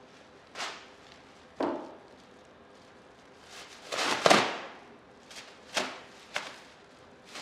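Handling noise from objects at a table: a handful of short, sharp knocks and rustles, the loudest a longer noisy rustle about four seconds in.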